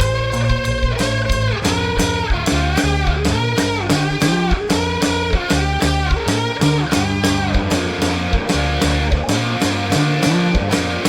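Rock band playing: guitar over bass guitar and a drum kit keeping a steady beat, with bending, sliding notes in the upper line.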